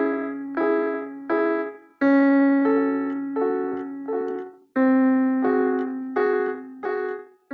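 Piano melody: short struck notes about every two-thirds of a second over a held low note that is re-struck twice, each note cut off cleanly before the next.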